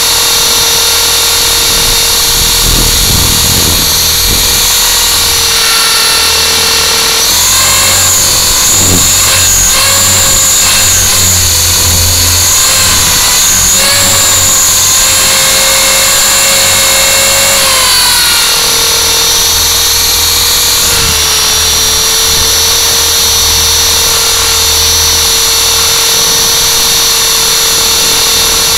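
Electric motors and rotors of a small radio-controlled aircraft whining steadily in hover, heard from its onboard camera. The pitch rises and wavers as the throttle is raised for about ten seconds in the middle, then settles back to a steady whine.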